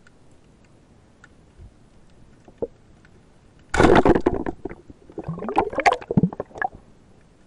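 Underwater sound picked up by a diver's camera: faint clicks, then about halfway through a sudden loud rush of bubbling water that lasts under a second. A run of gurgles and knocks follows as the camera is handled.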